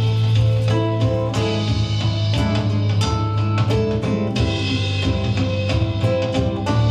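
Instrumental stretch of a pop-rock song with no singing: a steady drum-kit beat under guitar and sustained keyboard-like notes.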